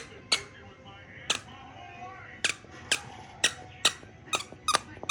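Squeaky dog toy being squeezed over and over, giving about ten short, sharp squeaks at uneven intervals that come faster near the end.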